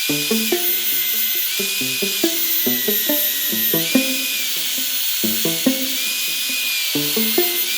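A small electric power tool running with a high whine and hiss, its pitch dipping and rising every second or so as it works the wood. Background music with short melodic notes plays over it.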